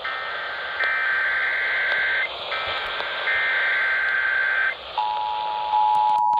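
Emergency Alert System header heard over a radio with hiss: a few bursts of buzzy digital data tones broken by short gaps. About five seconds in, the steady two-tone EAS attention signal begins and holds, marking the start of a relayed test alert.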